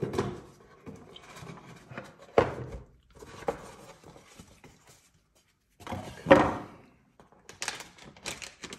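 Handling of a cardboard product box: several separate thunks and sliding knocks as it is picked up and opened, the loudest about six seconds in. Near the end, a plastic bag crinkles in quick small crackles as the card is drawn out.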